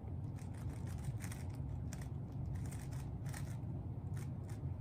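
Plastic Rubik's cube being turned in the hands: a run of quick, irregular clicks and scrapes from its layers, over a steady low hum.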